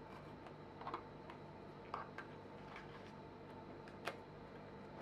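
Faint, scattered small clicks and scratches as a pointed tool picks at and lifts masking tape from a plastic model ship deck, over a steady low hum; the sharpest click comes a little after four seconds in.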